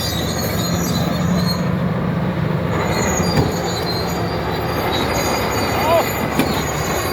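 Komatsu D80A crawler bulldozer working under load, its diesel engine running steadily while the steel tracks squeal and clank, with a couple of sharp knocks about three and a half and six and a half seconds in.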